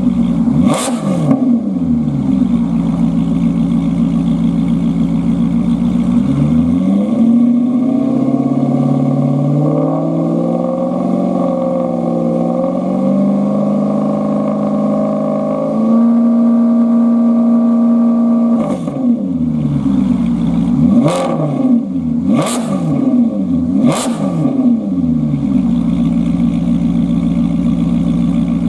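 Maserati GranTurismo MC Stradale's V8 through a Bertocchi front-catalyst and collector centre-pipe exhaust, idling between throttle blips. After a short blip, it idles, then the revs climb in steps and are held high for a few seconds before dropping. Three quick sharp blips follow, and it settles back to a steady idle.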